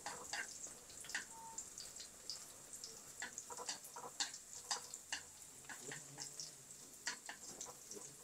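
Garlic frying in hot oil in a pan, a faint irregular crackling and popping over a soft hiss as it browns toward golden-red.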